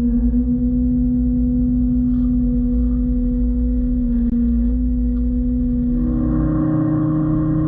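Yanmar Vio-80 mini excavator's diesel engine and Lipa TLE-FS 90 forestry mulcher running with a steady hum. The pitch steps up about six seconds in.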